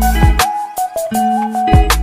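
Background music with a beat: deep bass notes that slide down in pitch, sharp percussive hits, and a repeating higher melody line.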